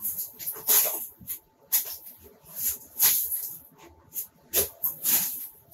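Basement ceiling being pried and torn down, with debris scraping and crumbling in short, irregular bursts, about eight in the space of a few seconds.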